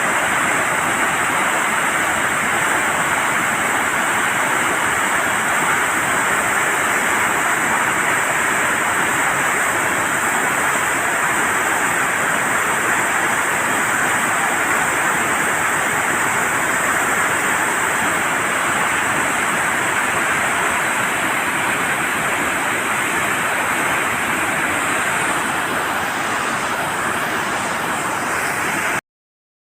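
Water rushing steadily out through the open floodgate of the Serut dam, a dense continuous roar; it breaks off abruptly near the end.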